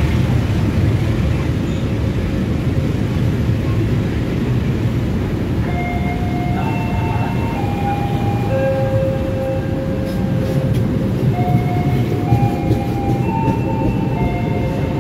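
Long-distance KAI passenger train with Eksekutif coaches rolling past along the platform, a steady rumble of wheels on rails. About six seconds in, the station's multi-note chime melody plays over it, then repeats near the end.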